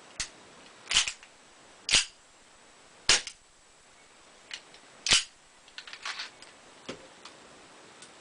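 KWC Tanfoglio Witness 1911 CO2 BB pistol firing: three sharp shots about a second apart, then a fourth a couple of seconds later, with fainter clicks and a brief clatter between. The magazine's gas port has been adjusted to give the gun more power.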